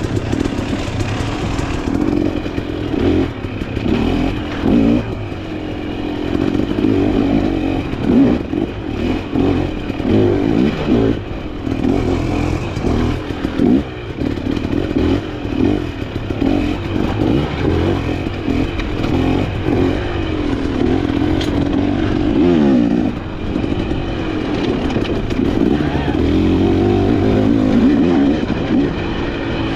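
Dirt bike engine running hard, its revs climbing and dropping constantly, with one long drop and climb back about two-thirds through.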